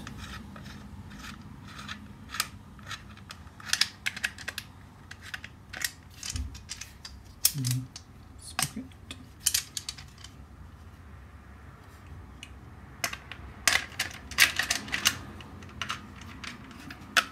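Irregular clicks, taps and rustles of hard plastic and cardboard being handled: a new STIHL power head turned over in the hands above its cardboard shipping box. The sounds come in scattered clusters with quieter gaps between.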